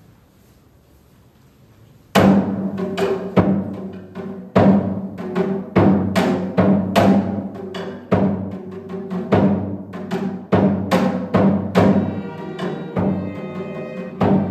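A student orchestra starts its last piece about two seconds in, with loud struck notes that ring and fade, about one or two a second, over a steady low held tone. More held notes come in near the end.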